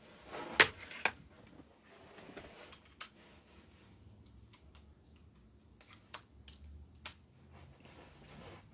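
Handling noises from fitting a charger plug to a portable DVD player: about five sharp plastic clicks and knocks spread over several seconds, the loudest in the first second, over faint rustling.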